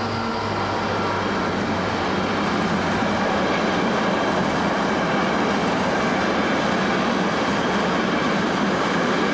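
Freight train of container wagons rolling past at speed: a steady rush of wheels on rail. The low hum of the diesel locomotive heading the train fades in the first half-second as it goes by.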